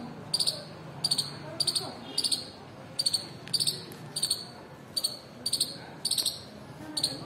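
Palm squirrel chirping, a sharp high 'chip' call repeated steadily about twice a second, each call a quick double or triple note.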